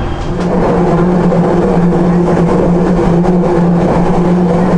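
MRT Jakarta Ratangga electric train heard from inside the car as it pulls out of an elevated station: a steady low hum with a few overtones over running noise, growing louder about half a second in and then holding level.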